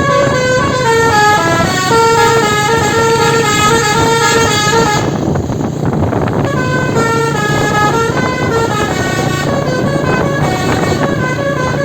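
Telolet bus horn: a multi-tone horn playing a melody of stepped, held notes that pauses for about a second and a half midway, then starts again. A steady low hum runs beneath it.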